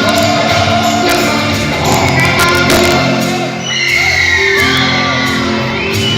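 Live band music with a singer, loud and steady, with high sliding whoops from the audience about four seconds in.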